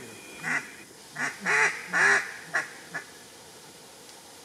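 A series of about six short duck quacks, building to the loudest pair in the middle and then falling away in a descending cadence.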